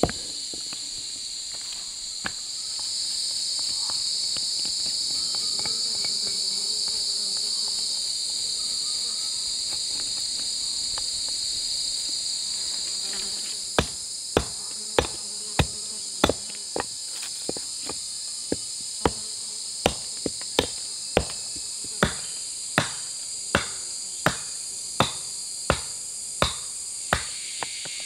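A steady high drone of insects, swelling louder for a stretch early on. From about halfway in, a tool strikes wood in a steady run of sharp knocks, roughly one every 0.7 seconds.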